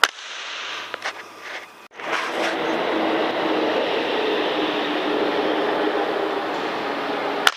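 Two sharp cracks of a PCP air rifle shot, one at the start and one near the end. Between them, a loud steady mechanical running noise with a low hum.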